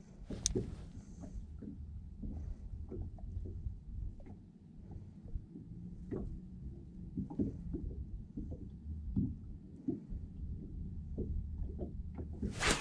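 Low steady rumble aboard a small fishing boat, with scattered faint irregular taps and clicks from handling a spinning rod and reel.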